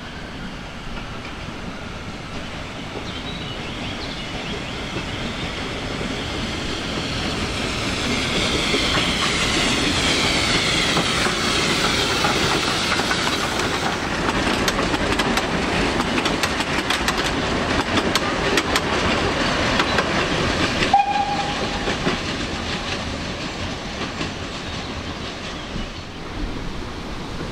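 Narrow-gauge steam train approaching and running past close by, its noise growing louder. The wheels click over the rail joints as the coaches go by, and a brief tone sounds about three quarters through.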